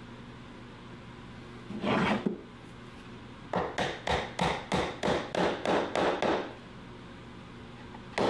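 Hammer driving half-inch wooden dowels into drilled holes in a plywood box. A single knock comes about two seconds in, then a quick run of about ten blows, roughly three a second.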